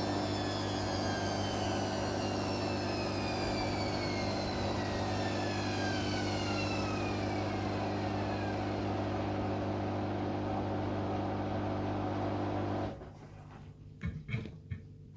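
Hoover Dynamic Next washing machine winding down from a 1600 rpm spin: a motor whine that falls steadily in pitch over a steady hum. About thirteen seconds in the hum cuts off suddenly, followed by a few short clicks.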